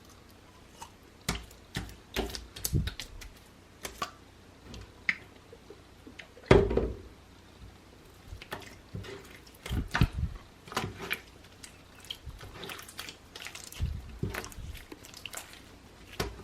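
Clear glue slime being mixed with activator: irregular wet squelches, drips and small clicks against the container, the loudest squelch about six and a half seconds in.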